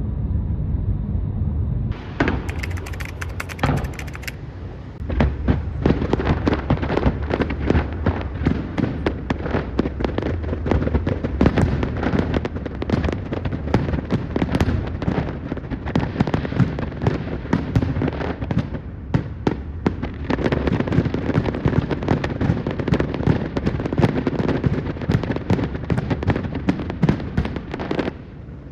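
Fireworks display: a dense barrage of aerial shells bursting, with overlapping bangs and crackling, starting about two seconds in and going on without a break.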